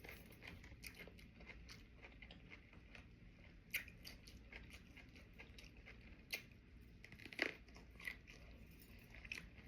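Faint close-up chewing of sushi, soft wet crackling with a few sharper clicks spread through.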